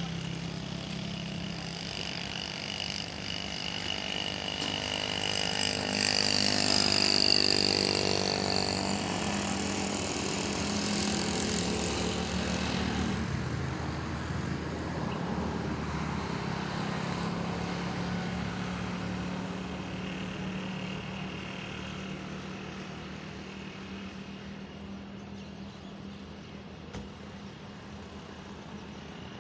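Motor vehicles passing on a road, with a steady low engine hum throughout. One vehicle swells up and passes loudest about seven seconds in; the sound then fades away and is quieter near the end.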